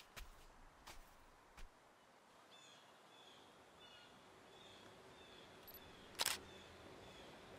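A single DSLR shutter click about six seconds in, the loudest sound here, over faint bird chirps. A few soft footsteps in the first two seconds.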